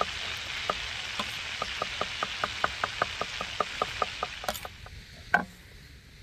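Sausages frying in hot fat in a pan: a steady sizzle with frequent sharp pops and crackles of spitting fat, about three or four a second. The sizzle stops about four and a half seconds in, and a single sharp knock follows near the end.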